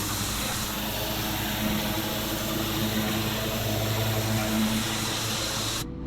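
Engine-driven pressure washer running with its high-pressure jet spraying, a loud steady hiss over the engine's hum. The spray stops suddenly near the end while the engine keeps running.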